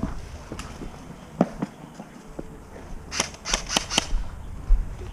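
Airsoft guns firing: a couple of single sharp snaps, then a quick volley of about five shots about three seconds in.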